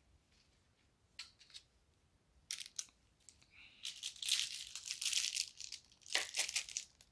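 Gun box and packaging being handled: a few light clicks, then about two seconds of crinkling, rustling packing material, and a knock about six seconds in.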